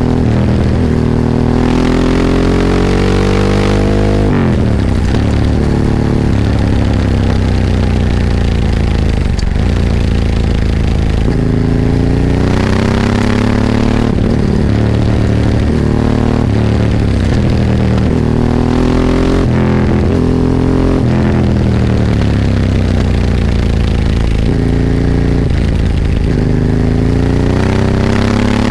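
Ducati 998's L-twin engine heard onboard while riding, accelerating hard with the pitch climbing, then dropping sharply about four seconds in. It keeps rising and falling with throttle and gear changes, climbing again strongly near the end.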